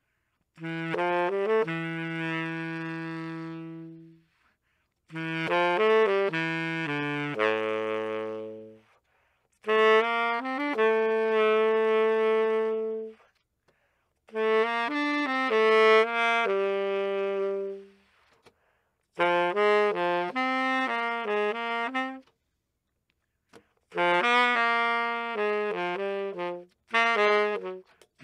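Baritone saxophone played solo and unaccompanied: a slow melody of long held notes, some reaching deep into the horn's low register, in six phrases with short silent breaths between them.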